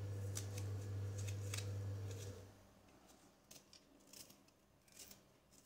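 Soft, scattered clicks and scrapes of a kitchen knife working through small bitter gourd halves, taking out the seeds and cutting the gourd. A low steady hum underneath stops about two and a half seconds in.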